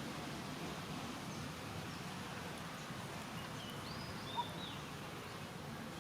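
Steady outdoor background noise with a few faint, short high-pitched chirps a little past the middle and one soft click.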